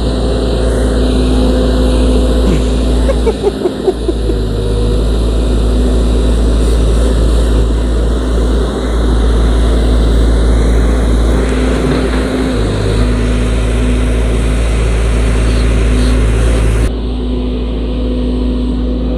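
Volvo crawler excavator's diesel engine running steadily with a constant hum. The sound changes abruptly near the end.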